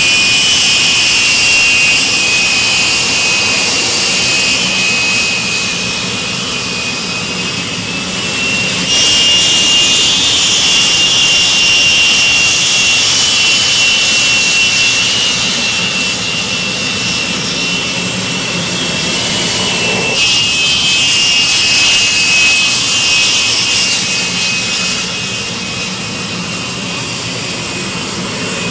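Aermacchi MB-339 jet trainers' Rolls-Royce Viper turbojets running at taxi power: a loud steady high whine over a rushing hiss. About a third of the way in, the whine steps up a little higher and louder.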